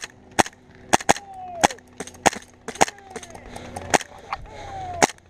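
Airsoft guns firing single shots: about a dozen sharp cracks at irregular intervals, with short falling whistle-like tones between some of them.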